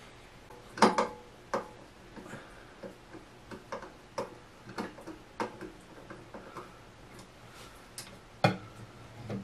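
Irregular light clicks and knocks, one or two a second, from hands and a tool working on the Shop Fox W1685 dust collector's base and impeller housing during assembly, with two louder knocks, about a second in and near the end.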